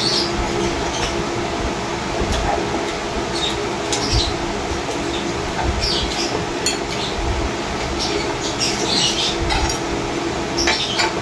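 Plates and spoons clinking now and then on a glass-topped table, a dozen or so short light clinks, over a steady hiss of heavy rain.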